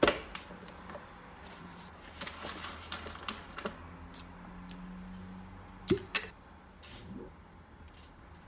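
Plastic clicks and taps from an Arçelik coffee maker being handled: a sharp click as its lid is opened at the start, scattered small taps, and two loud clicks about six seconds in.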